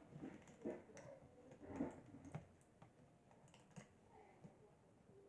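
Faint scattered clicks and light handling noises of fingers working a small plastic packet, trying to open it.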